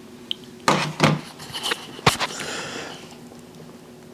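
A few knocks and bumps in a small room: two heavy bumps within the first second or so, then a single sharp knock about two seconds in, followed by a brief rustling hiss.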